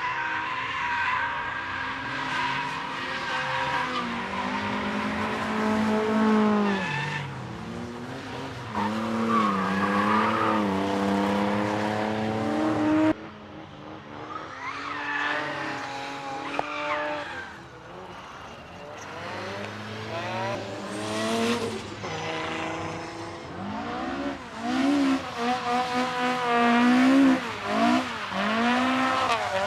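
Cars being driven sideways: engines revving up and down, with tyre squeal as they slide. The sound drops suddenly about halfway through and then builds again as more cars come by.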